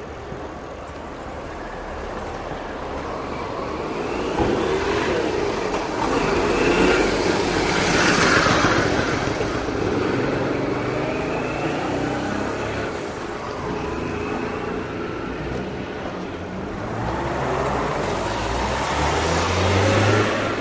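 Moving city bus heard from inside: engine and road noise, swelling louder twice, once about a third of the way in and again near the end.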